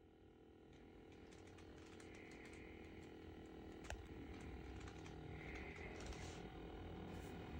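Faint steady whir of the small motor spinning an LED POV fan display, fading in, with scattered light clicks and one sharp click about four seconds in.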